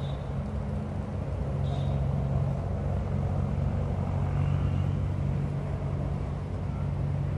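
Steady low rumble of a running vehicle engine or nearby road traffic, a hum that holds the same pitch throughout.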